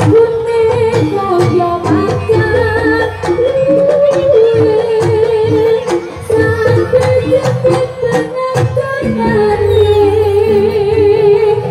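Live jaranan gamelan music: a sustained, wavering melody line (a singer's voice or a shawm-like reed) over a steady beat of drums and pitched metal percussion.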